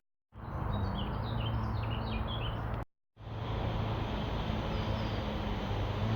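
Small birds chirping in a quick run of short high notes, over a steady low rumble with a faint hum. The sound cuts out briefly about three seconds in, then the rumble carries on with one more faint chirp.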